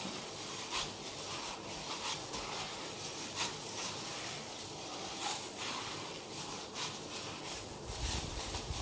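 Plastic-gloved hands kneading a shredded chicken patty mixture in a steel bowl: soft, irregular squishing and rubbing strokes, several a second.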